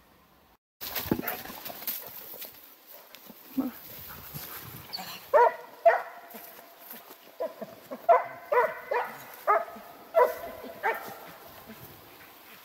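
Russian hound baying on a hare's trail: about a dozen short calls in quick succession starting a few seconds in, some coming in close pairs.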